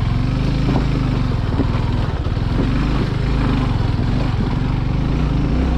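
Suzuki Gixxer 250 motorcycle's single-cylinder engine running at fairly steady low revs while it is ridden slowly over a rough, broken dirt road.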